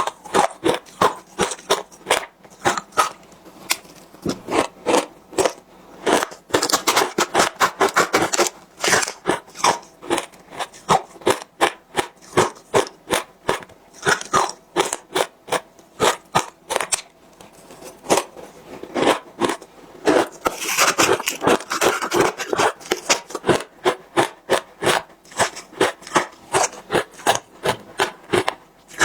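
Close-up crunching of frozen matcha ice as it is bitten and chewed, in sharp, regular crunches about two or three a second, with two stretches of denser crackling, about a quarter of the way in and again past the middle.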